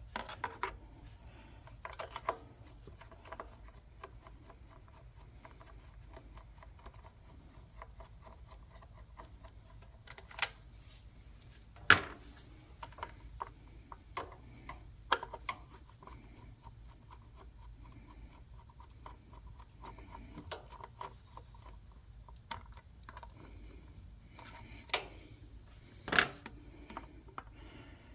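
Scattered small metallic clicks and clinks of a screwdriver, screws and small parts being handled while a generator's carburetor is unbolted, with a few sharper clicks, the loudest about halfway through and near the end.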